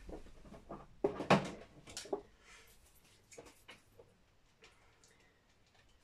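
A few light clicks and knocks of small objects being handled off to the side, the loudest a little over a second in, then quiet room sound.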